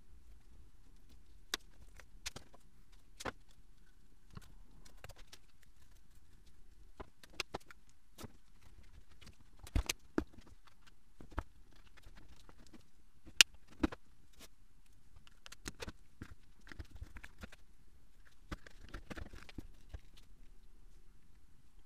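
Irregular clicks and light knocks from hand disassembly: a screwdriver working the screws of a metal plate and plastic fiber-spool cover, and the parts handled and set against the bench. The clicks come scattered, with the sharpest a little past halfway.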